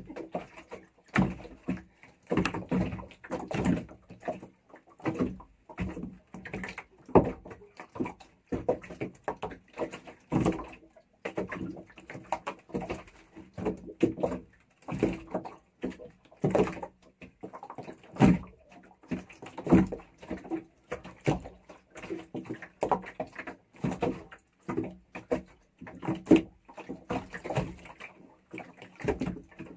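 Irregular knocks and creaks from the wooden fishing boat as it rocks, about one or two a second, over a faint steady hum.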